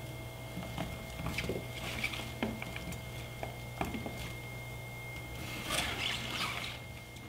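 Raw cauliflower florets being pulled apart and pushed around on a wooden cutting board by hand: small crackles, snaps and soft knocks, with a louder crunchy rustle about six seconds in. A steady faint hum runs underneath.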